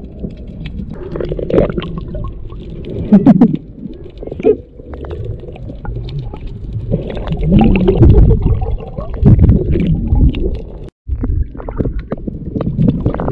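Sound recorded by a camera held underwater: a low rumbling and gurgling of water and bubbles, with a few muffled voice-like sounds from the snorkellers. The sound cuts out for an instant near the end.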